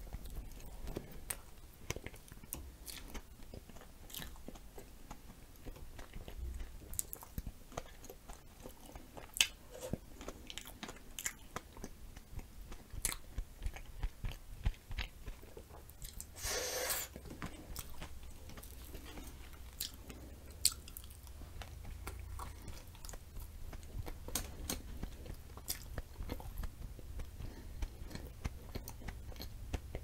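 Mouth sounds of chewing a sour glazed donut with whipped cream and blueberries: many soft wet clicks and smacks. A little past halfway there is a brief, louder sucking sound as a cream-covered finger is licked.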